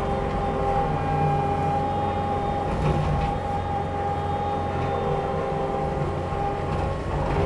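Takeuchi skid steer's diesel engine running steadily under load, driving a forestry mulcher, with a steady high whine over the engine drone.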